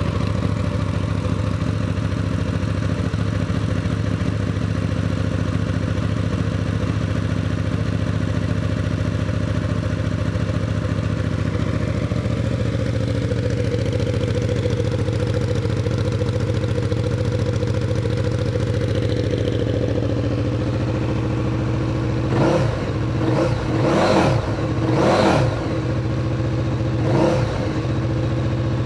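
2016 KTM 1290 Super Duke R's 1301 cc V-twin idling through an Akrapovič exhaust, then blipped with four or five quick throttle revs that rise and fall near the end.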